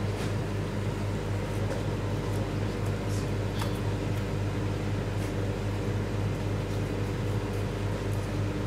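Steady low mechanical hum, with a few faint short clicks of a knife trimming sinew from a pork tenderloin on a plastic cutting board.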